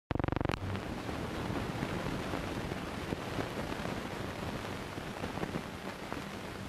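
Steady hiss and crackle of an early Movietone sound-on-film soundtrack, starting with a brief rapid fluttering buzz as the sound comes in.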